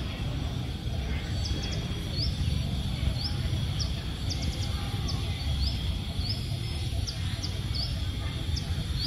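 Short, high bird chirps, some rising quickly in pitch, repeated irregularly a dozen or so times over a steady low rumble.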